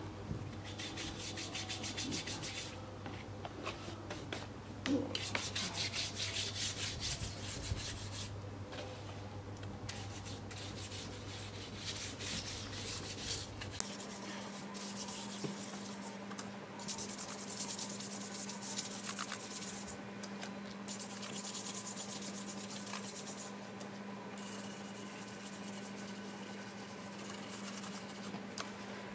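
Toothbrush scrubbing a wheel rim with a wet baking soda and lemon juice paste. It goes in spells of quick back-and-forth strokes a couple of seconds long, with short pauses between.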